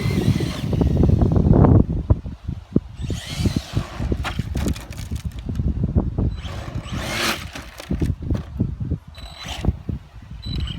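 Arrma Senton 3S radio-controlled truck driving in bursts over rough ground, its motor whirring up several times among scrapes and knocks, with wind buffeting the microphone at the start.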